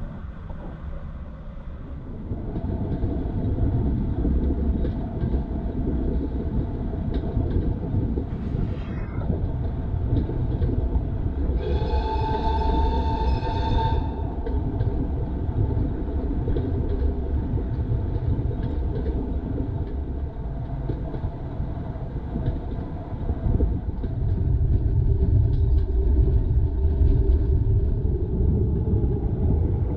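Train running on the line with a steady low rumble, which grows louder a couple of seconds in and again near the end. Around the middle, a high whistle sounds once for about two seconds.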